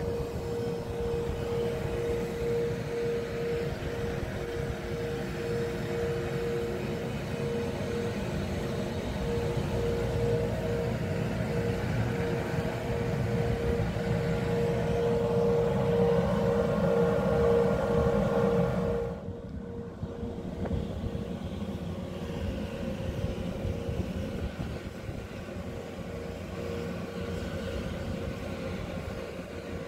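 Steady drone of the USNS Burlington's shipboard machinery: a pulsing hum over rushing noise. About two-thirds of the way through it drops in level and thins abruptly.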